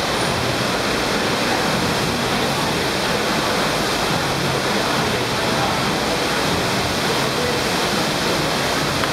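Steady, unbroken rush of water from an indoor surf simulator, a thick sheet of water pumped up and over a padded ramp.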